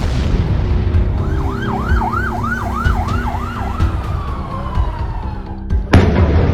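An emergency vehicle siren wailing in quick rising-and-falling sweeps, about six of them, then trailing off in a slow falling glide, over a steady low rumble. A sudden loud hit comes near the end.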